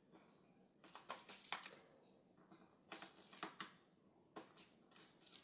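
Small screwdriver turning the tiny corner screws out of a laptop's LCD screen frame: three short bursts of quiet clicks and scrapes, about a second in, around three seconds in, and near the end.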